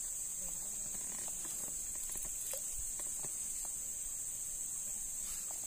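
Steady high-pitched insect chorus, crickets or cicadas in the forest, with faint scattered ticks and taps.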